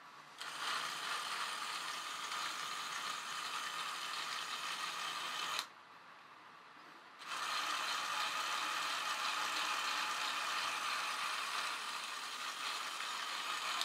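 LEGO WeDo 2.0 motor whirring steadily as it spins the model helicopter's rotor. It cuts out for about a second and a half midway, when the model is held level and the tilt-sensor program switches the motor off, then starts again.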